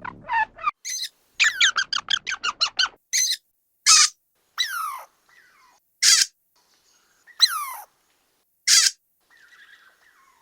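Squirrel calling: a quick run of about ten short chattering squeaks, then about six loud, sharp squeals spaced a second or so apart, several sliding down in pitch.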